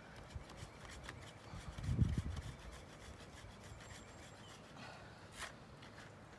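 Hand branch saw cutting through a maple trunk in quick, rasping back-and-forth strokes, finishing a felling cut. A brief low bump about two seconds in.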